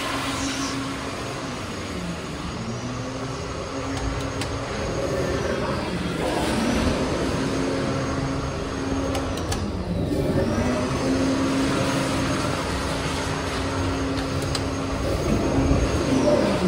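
Kohler Kingston wall-hung toilets flushing one after another through their flushometer valves: a loud rush of water with a humming tone that slides up, holds and slides down with each flush, several flushes overlapping.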